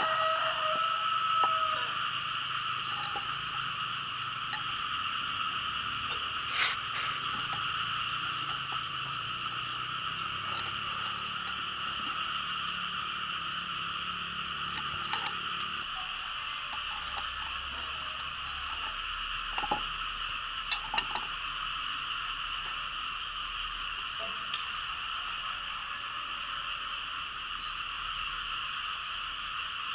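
Steady chorus of frogs calling, a dense, even drone in two bands. A few light knocks and taps come through it, from boards and a steel square being handled.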